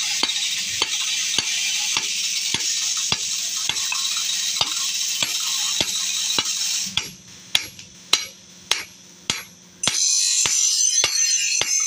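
Hand hammer striking a red-hot chaff cutter blade on a steel anvil, about two blows a second, over a steady high hiss. The hiss drops out about seven seconds in, leaving the blows clear, and comes back near the end.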